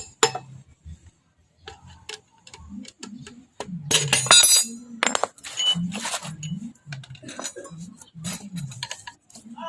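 Metal tools clinking and knocking against a motorcycle's front wheel hub while the old wheel bearing and inner spacer are driven out. The strikes are irregular, with the loudest, ringing cluster about four seconds in.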